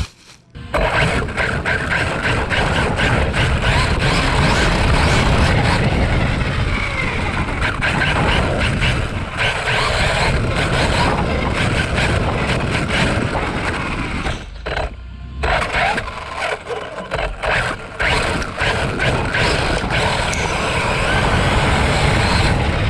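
Radio-controlled vehicle motors running hard, a dense rushing drone that flickers fast, cutting out briefly twice.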